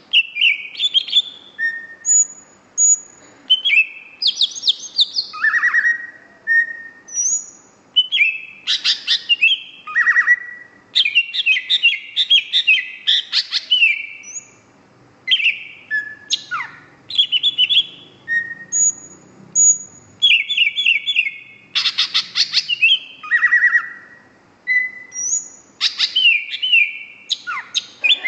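Green leafbird (cucak hijau) in 'gacor' full song: phrase after phrase of rapid chattering trills and clear slurred whistles, with short pauses between phrases.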